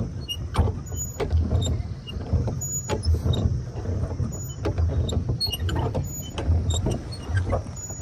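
Sounds of a boat ride on a lake: an uneven low rumble with irregular sharp knocks and splashes from the boat on the water.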